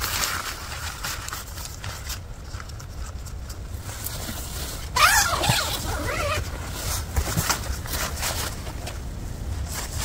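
Nylon tent fabric rustling and crinkling as the door panel is handled, with a louder, quick zipper pull about halfway through.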